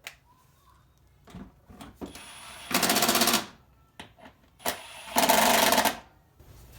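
A power wrench run in two short bursts of about a second each, with a fast, even rattle, as it drives a bolt home during reassembly of the front wheel hub. A few light knocks of tools and parts come between the bursts.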